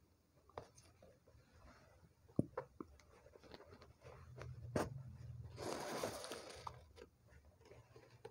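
Needle and satin ribbon being worked through fabric stretched in an embroidery hoop: faint scratching and small taps, with a longer rustle of the ribbon being drawn through the cloth about six seconds in.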